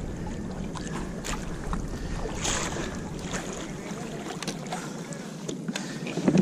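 Water sloshing and lapping against a kayak's hull, with wind on the microphone and scattered small knocks and splashes.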